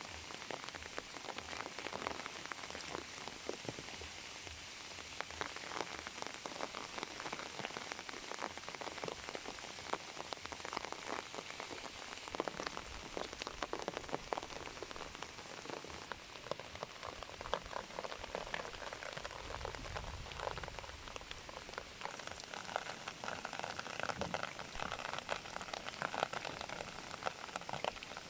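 Steady rain falling, with dense drops pattering on surfaces close by.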